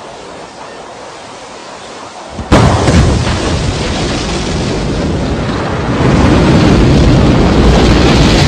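Rocket engines igniting at launch: a steady hiss gives way, about two and a half seconds in, to a sudden, loud, deep noise that steps up again in level around six seconds in as lift-off begins.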